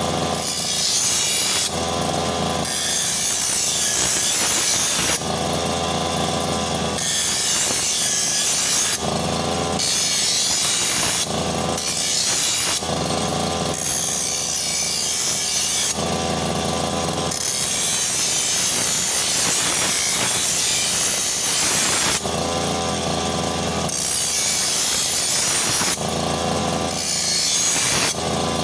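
Brush cutter engine running hard, its pitch rising and falling every couple of seconds, alternating with stretches of harsh high hissing as it cuts.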